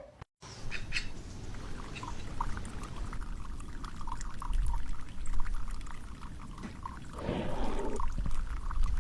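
Water pouring and trickling, with small plips and clicks throughout and a louder rush about seven seconds in.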